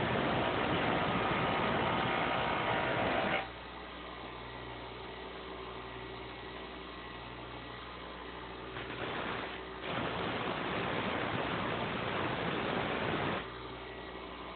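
Bench grinder running, with steel lock-pick stock pressed to the wheel in three spells of grinding hiss: a long one that stops about three and a half seconds in, a short one about nine seconds in, and another from about ten seconds to thirteen. Between them the grinder runs on alone with a quieter steady hum.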